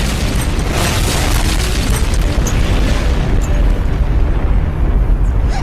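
A long, loud explosion sound effect: one continuous bomb blast with a heavy low rumble, running several seconds and cutting off suddenly near the end.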